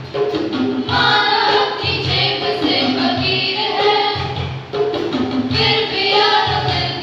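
A group of students singing together as a choir, over a steady low beat.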